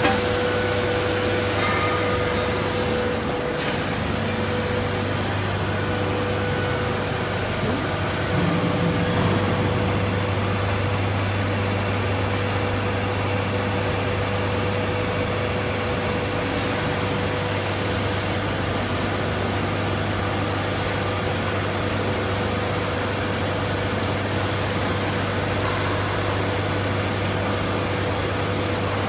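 SJ A65 blown film extrusion machine running: a steady mechanical drone of motors and blowers with a strong low hum and a thin steady higher tone.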